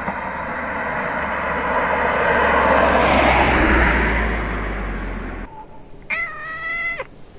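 A car passing by on the road: tyre and engine noise swells to a peak and then cuts off abruptly. About a second later comes a short, high-pitched cry.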